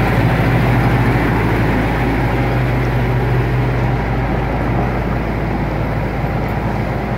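Diesel engine of a large four-wheel-drive John Deere tractor running steadily as the tractor drives away, growing slightly fainter after a few seconds.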